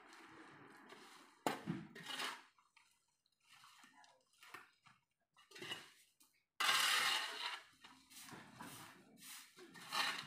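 Dry leaves being swept and scooped up off concrete pavement: irregular scrapes of a tool on the concrete and crackling rustles of leaves, the loudest stretch a little over halfway through.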